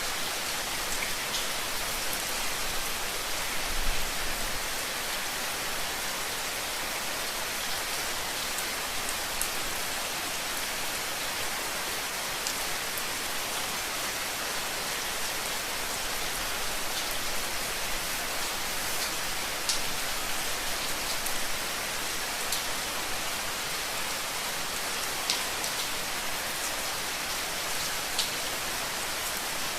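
Steady rain falling on a hard surface, an even hiss with scattered individual drops ticking sharply above it. About four seconds in there is a brief low thump.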